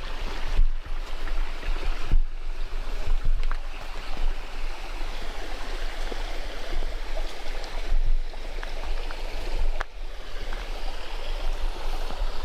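Creek water rushing steadily over shale and rocks, with a few brief knocks and a low rumble underneath.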